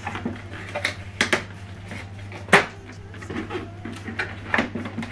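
Plastic clicks and knocks from the Epson WF-2960 printer's raised scanner unit and inner parts being handled while blue packing tape is taken out, with one louder knock about two and a half seconds in, over a low steady hum.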